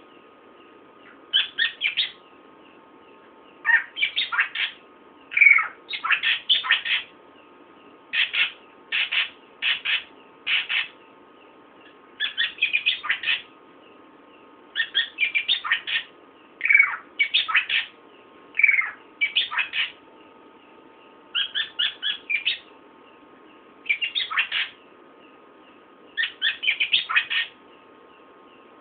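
Srikantil (krantil) songbird calling in short bursts of rapid, high chirps, a burst every second or two, some bursts sweeping downward in pitch.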